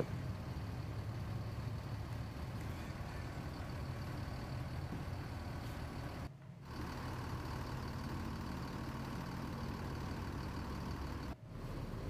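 Steady low rumble of an idling vehicle engine, cutting out briefly twice, about six seconds in and again near the end.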